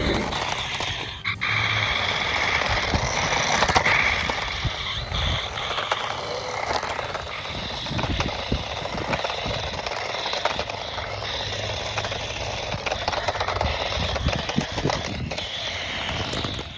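Toy-grade remote control tank car driving: a small electric motor running with its plastic wheels rattling and scraping over the ground, in a steady noisy run broken by small knocks.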